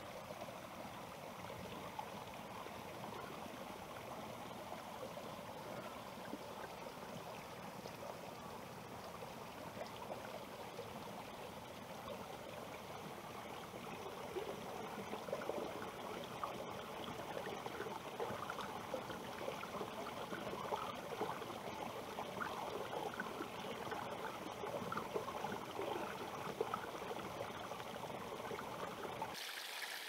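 Water pouring from a bamboo spout into a stone basin: a steady splashing trickle, getting somewhat louder about halfway through.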